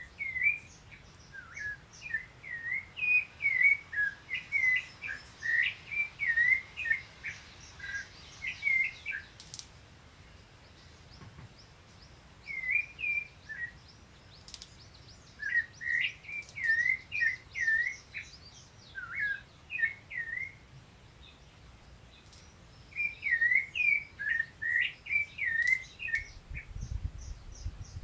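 A sabiá thrush singing: three bouts of quick whistled notes, each note a short slurred rise and fall, with gaps of a few seconds between bouts. A low rumble comes in near the end.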